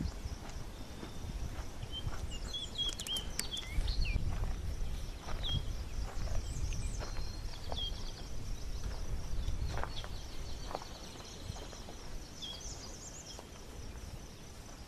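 Open-air ambience: a steady low wind rumble on the microphone, small birds chirping now and then, a steady high insect buzz, and footsteps on gravel.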